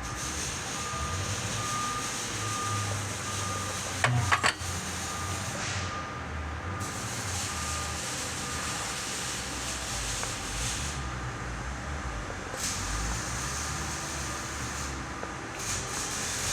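Shop-floor noise with a steady hiss that drops out and comes back several times, under a repeating electronic beep sounding about every three-quarters of a second until about two-thirds of the way through. A short cluster of loud knocks about four seconds in is the loudest moment.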